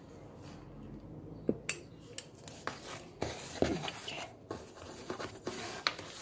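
Scattered light taps and short rubbing scrapes from a ruler and tape measure being handled on the pastry dough and work surface while the dough is measured and marked every 10 cm.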